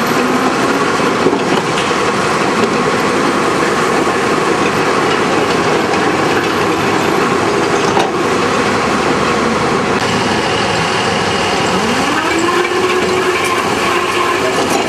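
A 5 cubic metre electric rope shovel working: a steady, loud mechanical din of its electric drives and gearing. About twelve seconds in, a motor whine rises in pitch and then holds, and there is one sharp knock a little past the middle.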